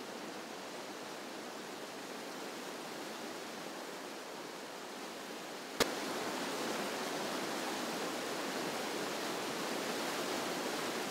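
Whitewater rapids rushing steadily. A single sharp click comes about six seconds in, after which the rushing is louder.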